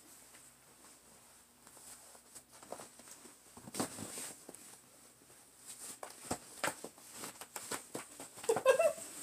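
Rustling of clothing and soft knocks and shuffles as a woman struggles to pull on a pair of tight, low-stretch leggings, with a louder rustle about four seconds in and a run of sharp knocks around six to seven seconds.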